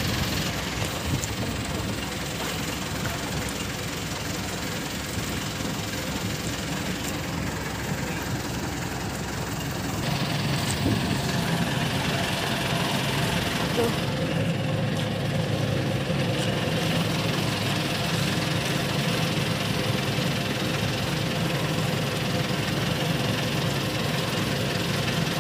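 Small fishing boat's engine idling steadily, a low, even hum that gets a little louder about ten seconds in.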